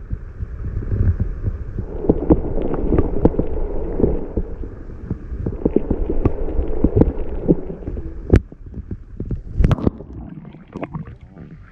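Muffled underwater sound picked up by a GoPro in its waterproof housing held under the lake: a low rumble and throb with many small clicks and knocks. It grows quieter about ten seconds in, as the camera is lifted out of the water.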